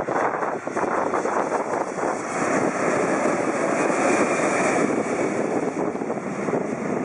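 Twin-engine jet airliner passing low overhead on final approach with its landing gear down, its engine noise loud and steady and swelling to its loudest around the middle as it goes over.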